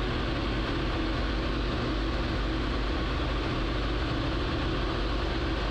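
Light bushplane's engine and propeller droning steadily in cruise flight, heard from inside the cockpit during a gentle right-hand turn.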